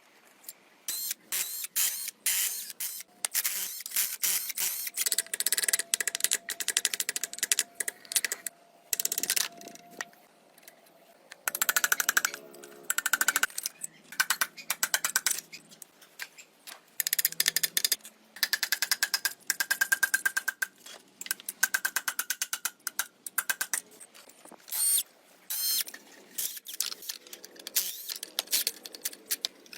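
Hand tools clicking in rapid, irregular runs, with a faint steady whine under some of the runs.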